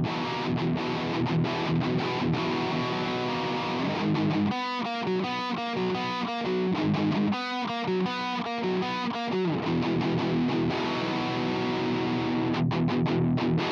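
Distorted electric guitar recording playing back through Blue Cat Audio's Destructor distortion plugin, its shaper switched from the bluesy drive curve to lead drive and then transistor as it plays. The changes in tone are subtle: the bluesy drive is fatter, the lead drive grittier, and the transistor has less low end. From about four and a half seconds in to nearly ten seconds the playing breaks into separate notes with short gaps between them.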